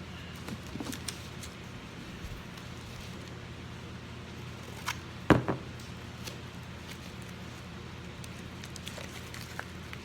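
Scattered light clicks and taps of trading cards in plastic sleeves and holders being handled, with one sharper knock about five seconds in, over a steady low hum.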